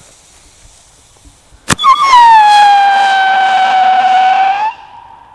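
A Sputnik firework shell tube firing: one sharp launch bang, then the shell's loud screaming whistle, which slides down a little in pitch, holds steady for almost three seconds and then cuts off.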